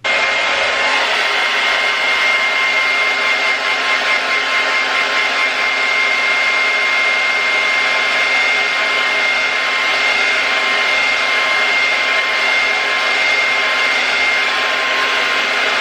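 Hair dryer switched on abruptly and running steadily, a rush of air with a high motor whine, blowing on a freshly brushed layer of lace wig glue to dry it.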